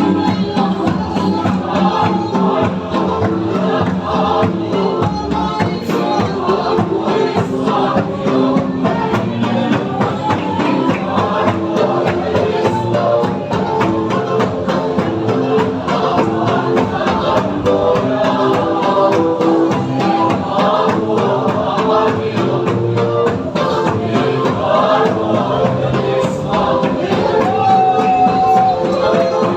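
A group of voices singing a hymn together with instrumental accompaniment, steady and loud throughout.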